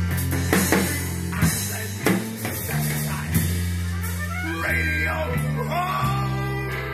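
A folk-punk rock band playing: drums, bass and guitar, with a man's voice singing long, bending notes that come in about four and a half seconds in.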